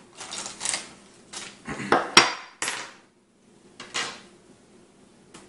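Plastic parts bag rustling as it is opened. Then a sharp metallic clink about two seconds in, another just after, and one near four seconds, as a metal base plate and a hex Allen key are set down on a wooden tabletop.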